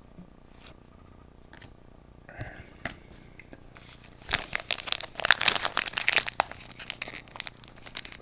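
A hockey card pack wrapper being torn open and crinkled in the hands. A few faint clicks come first, then a dense crinkling and tearing starts about four seconds in and carries on.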